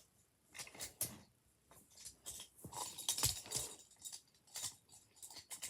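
Wooden toy train pieces being handled, giving irregular small clicks and knocks, with a cluster of louder knocks a little past the middle.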